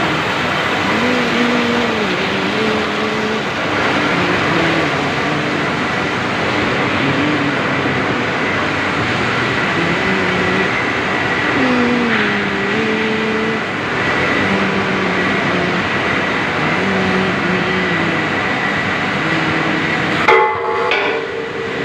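Plastic-making machine running with a loud, steady mechanical din and a thin high whine, while a tune of shifting notes plays over it. The din drops out abruptly near the end.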